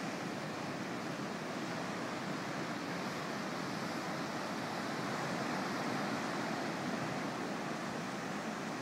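Ocean surf breaking and washing up onto a sandy beach: a steady, even rush of white water.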